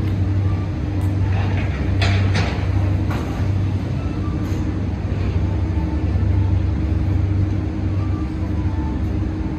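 Steady low engine-like rumble with a faint held tone above it, and a few sharp clicks or taps in the first few seconds.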